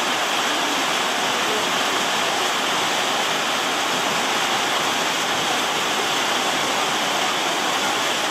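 Heavy rain falling in a steady, even downpour.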